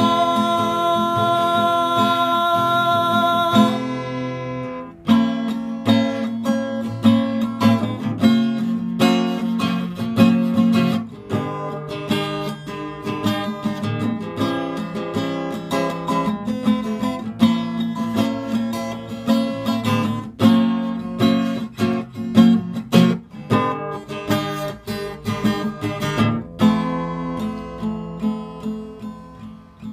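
Acoustic guitar strummed and picked in a steady rhythm during an instrumental break. A long held sung note rings over it at first and stops about four seconds in.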